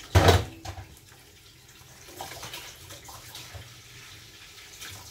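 Water running from a kitchen tap into the sink, with a loud knock just after the start and a few lighter clatters.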